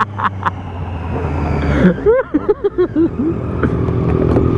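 Motorcycle engine under way, its note rising for about two seconds and then dropping suddenly, as in a gear change, followed by a short run of six or so rising-and-falling warbles before the steady engine running resumes.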